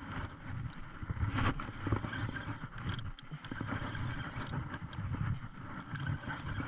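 Steady, fluttering low rumble of a small boat at sea. Scattered sharp clicks come from handling a Penn Battle II spinning reel as its handle is turned.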